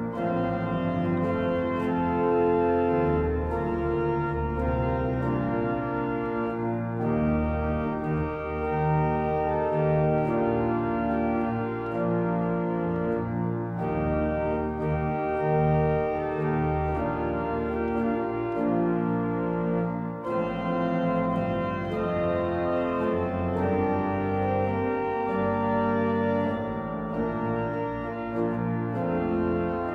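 Pipe organ playing held chords over deep pedal bass notes, the chords changing every second or two.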